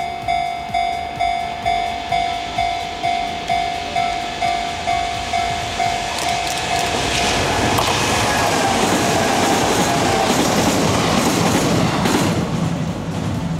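A railway level-crossing bell rings in even strokes, about two and a half a second. About seven seconds in it gives way to a Kintetsu Minami-Osaka Line electric train passing close by, whose rolling noise holds for about five seconds and fades near the end.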